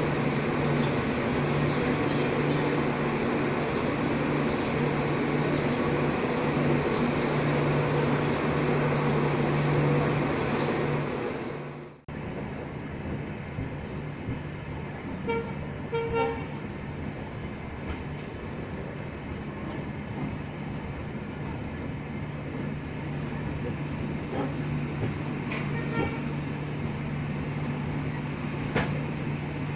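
Steady hum with a low drone inside a train coach. It cuts off suddenly about twelve seconds in and gives way to a quieter steady hum with a few light clicks.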